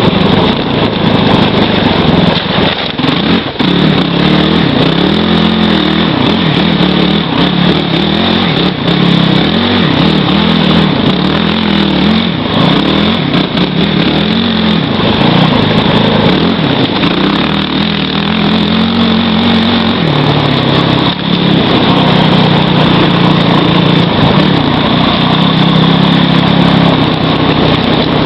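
Kawasaki KFX450R quad's single-cylinder four-stroke engine being ridden hard, revving up and down again and again, then held at a steadier, higher pitch for the last several seconds.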